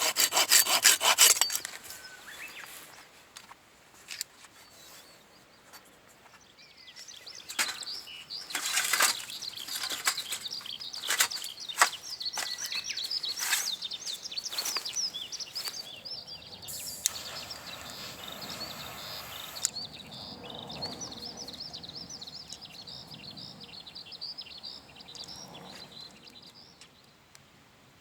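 Saw cutting through a hardwood log in fast, even strokes that stop about a second in. Later come slower, scattered scraping strokes and a few knocks, with high scratchy noise that fades near the end.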